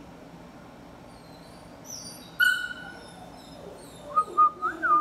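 Puppy whimpering: a high-pitched squeal about halfway through, then a run of short, wavering whines near the end.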